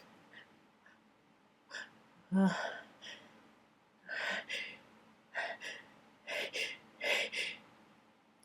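A person's string of short gasping breaths and sniffs as a sneeze builds and is held back, the nose irritated by attic dust.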